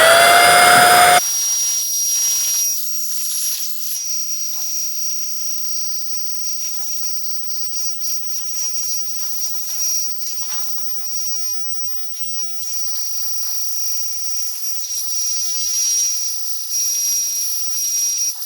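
Electric paint sprayer spinning up with a rising whine in the first second, then running steadily with a high whine and hiss as it sprays primer onto metal roof panels.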